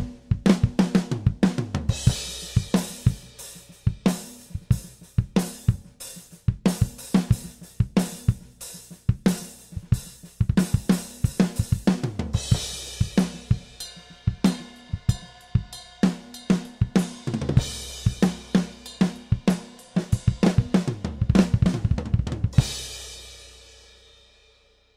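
A 1967 Ludwig Hollywood drum kit played in a steady beat, with kick, snare, toms and cymbals, as picked up by a budget CAD Pro 7 drum microphone kit. Near the end it stops on a final cymbal crash that rings out and fades away.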